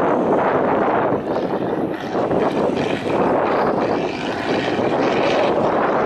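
Trial truck's engine running steadily as the truck creeps down a dirt slope.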